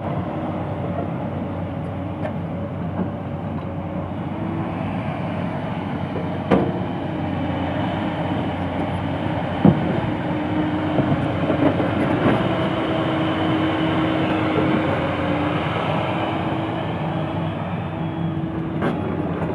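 Excavator's diesel engine running under load, with a hydraulic whine that shifts in pitch now and then and a few sharp metal clanks, the loudest about ten seconds in.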